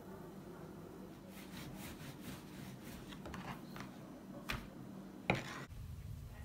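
Kitchen handling sounds: faint taps and clicks of dough and utensils over a low steady hum, with one sharp knock about five seconds in.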